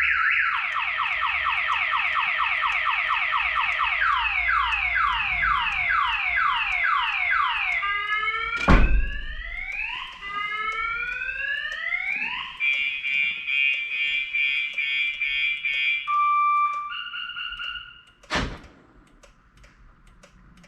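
Clifford car alarm siren going off, set off by opening the door while the alarm is armed, cycling through its tones: a fast warble, then repeated falling sweeps, then rising whoops, then steady held tones, stopping about 17 seconds in. A sharp thump near the middle and another just after the siren stops.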